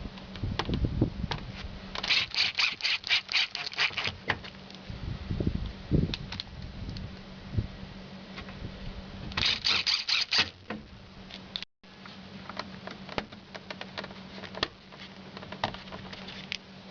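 Two runs of rapid clicking, about six clicks a second, the first about two seconds in and the second about nine and a half seconds in, among scattered knocks and low thumps, over a steady low hum.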